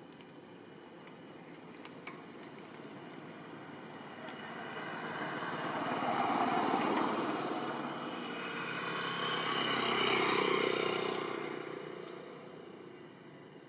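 Motor vehicle passing, its engine and tyre noise swelling and fading twice, loudest about ten seconds in.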